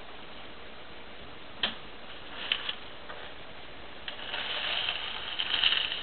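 A few light clicks, then a scraping, rustling stretch about four seconds in, from protein powder being worked on a paper plate.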